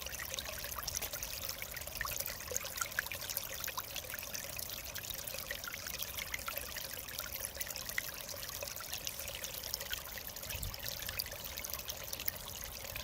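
Mountain stream flowing steadily over rocks, a continuous rush of water with many small bright splashes and trickles.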